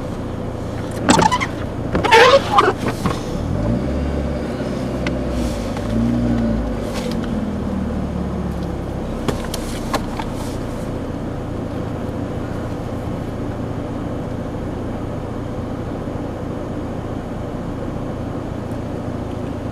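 Car engine and road noise heard from inside the moving vehicle. The engine works harder for a few seconds near the start, then settles into a steady drone.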